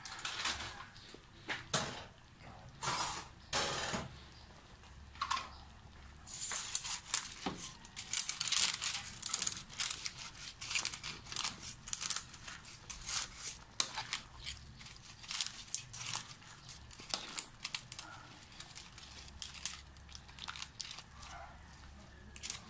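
Dry pancit canton egg noodles rustling and crackling as they are tossed in a wok with a spatula and ladle, with irregular scraping strokes of the utensils against the pan.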